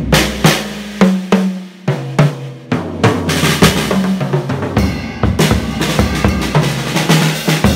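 A Pearl Rhythm Traveler compact drum kit played with sticks: a run of tom strikes stepping down in pitch, then from about three seconds in a busier beat of bass drum, snare and cymbals. The kit has not yet been tuned, which the owner thinks it still needs.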